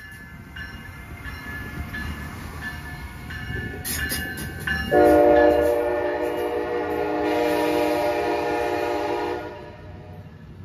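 Amtrak ACS-64 electric locomotive and its coaches passing close by, wheels clicking at an even rhythm as the rolling noise builds. About five seconds in, the train's horn sounds one long chord for about four and a half seconds, then cuts off, leaving the coaches rolling past.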